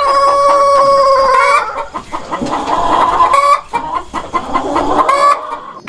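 Chicken sounds: a long rooster crow held on one pitch for about a second and a half, then a few short clucks.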